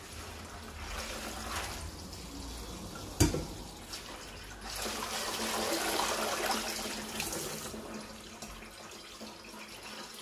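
Hands washing leafy greens in a basin of water in a stainless steel sink, water sloshing and splashing. About three seconds in there is a single sharp metal clank as a steel colander is set down on the sink, and from about five seconds in the water grows louder for about three seconds.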